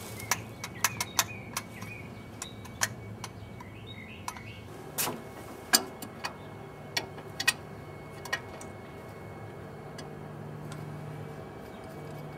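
Metal hand tools clicking and clinking against engine parts while bolts are worked loose: an irregular series of sharp ticks, with the loudest knock about halfway through.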